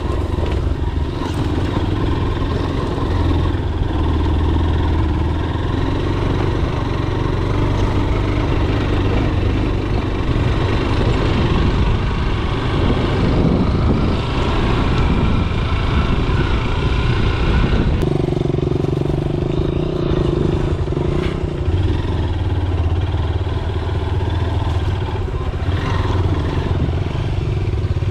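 Motorcycle engine running as the bike is ridden along, its note changing about two-thirds of the way through.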